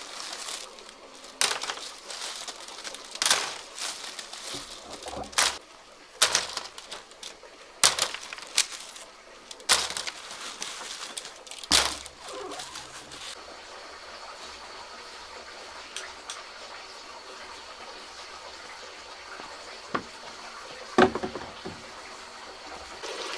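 Dried ears of corn handled in and dropped into a woven basket: a dry knock and rustle about every one and a half to two seconds for the first half. After that the knocks stop, leaving a quieter background with a faint steady high tone and a few light taps.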